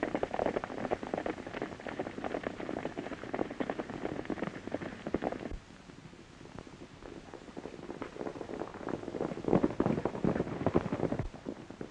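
Several horses galloping: a dense, irregular patter of hoofbeats. It breaks off suddenly about five and a half seconds in, then builds again as riders come closer, loudest near the end before cutting off.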